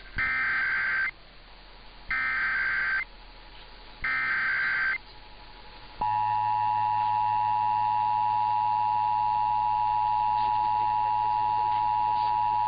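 Emergency Alert System SAME header: three one-second bursts of digital data tones, a second apart, followed about six seconds in by the steady two-tone EAS attention signal. Together they open a Required Monthly Test alert.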